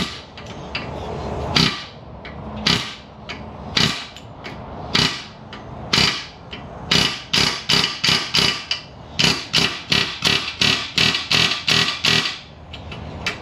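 Repeated hammer strikes on metal, working on a stuck ball joint stud. A few spaced blows come first, then a quicker steady run of about two to three strikes a second that stops shortly before the end.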